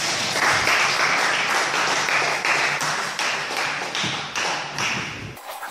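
Spectators clapping, a dense patter of many hands, cut off abruptly near the end.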